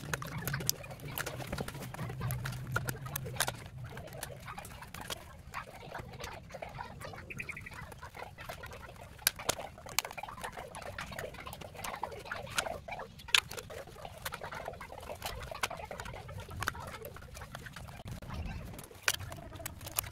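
Plastic battery-pack cover being cut and pried off with side cutters: irregular clicking and scraping of hard plastic, with a few louder snaps along the way.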